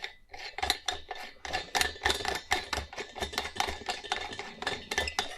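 Quick, irregular metallic clicks and clinks of lamp fittings being handled and screwed together: a brushed-brass pendant lamp holder being fitted into a lamp shade.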